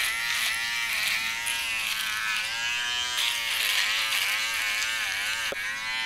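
Taurus mini portable electric foil shaver buzzing as it is run over the chin and upper lip. Its pitch dips and recovers again and again as the head is pressed against the skin and stubble. There is a short click near the end.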